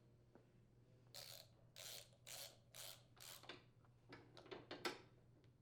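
Socket ratchet tightening the mounting bolt on a snowblower's drive wheel, heard faintly: five short rasping swings of pawl clicking about half a second apart, then a few sharp clicks near the end.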